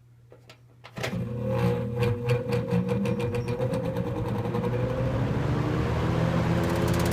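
1966 GE Model W22 20-inch box fan switched on: a couple of faint clicks, then about a second in the motor hums and the plastic blade spins up, with a rapid regular ticking that quickens as it gains speed. A friend of the owner suspects the motor bushings may be going out.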